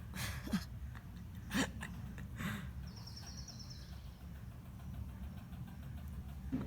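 Squirrel giving harsh alarm barks, three short calls about a second apart, then another near the end, over a steady low rumble.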